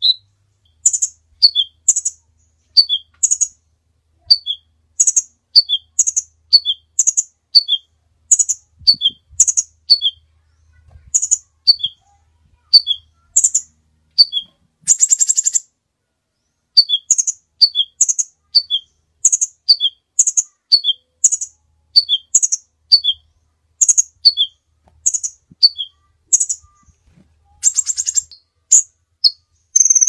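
Crimson sunbird calling: a steady series of sharp, high chirps, each a quick two-note drop, about one a second. A short buzzy trill comes about halfway through and again near the end.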